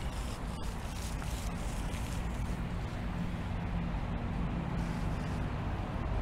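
Steady low outdoor background rumble with a faint, even hum and no distinct events.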